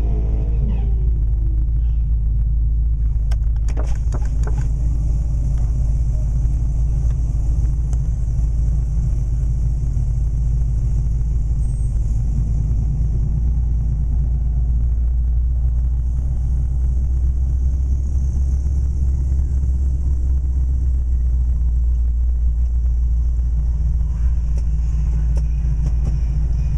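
Vehicle engines idling, a steady deep rumble, with a few faint clicks about three to four seconds in.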